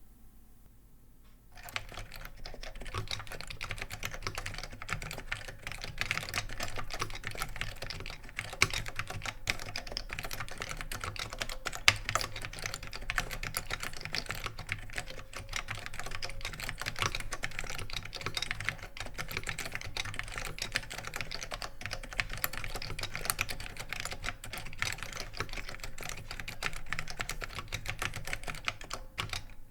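Steady, fast typing on a 1980 Alphameric 116K keyboard with foam-and-foil switches, mounted on a bare plate with no case, starting about a second and a half in.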